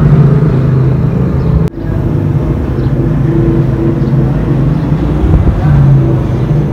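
Electric water pump motor running with a steady hum while the pump is not yet delivering water.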